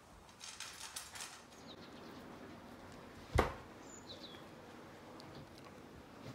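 Dogs eating from stainless steel bowls, with light clinks and scrapes in the first second or so. A single loud thump comes about three and a half seconds in, followed by a few faint high chirps.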